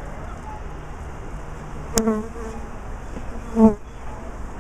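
A colony of honeybees on a top-bar hive comb, buzzing as a steady hum. Two louder buzzes swell up over it, about two seconds in and again near the end, the second the loudest, with a brief tap at the first.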